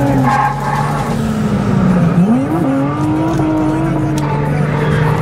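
Car engines running, one holding a steady note while another's pitch drops about two seconds in and then climbs again as it revs back up.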